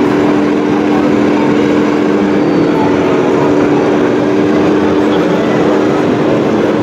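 Radio-controlled three-axle Volvo model truck driving under a heavy load, pulling a low-loader with a model excavator and a child aboard: a steady, unchanging engine-like drone over a broad background hiss.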